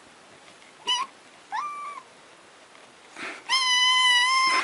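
A cat meowing: two short meows in the first two seconds, the second rising then holding its pitch, then a long, steady, drawn-out meow near the end.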